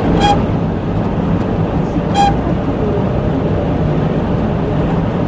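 Honda N-Box cabin at speed: steady road and wind noise, with two short high-pitched whistling tones, one near the start and one about two seconds in. The whistle appears to be wind resonating in the groove between the roof and the windshield, a known noise in pre-2017 N-Box models above about 70 km/h.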